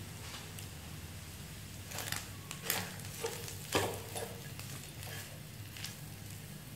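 Wooden spatula stirring and scraping onions, chillies and anchovies frying in a non-stick wok: a few scrapes about two to four seconds in, over the sizzle of the frying and a steady low hum.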